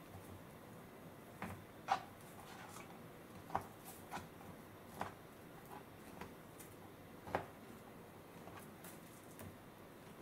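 Raw pork shoulder being rolled and pressed by hand on a plastic cutting board: faint, irregular soft squishes of wet meat and light knocks against the board, a few seconds apart, the loudest about two seconds in.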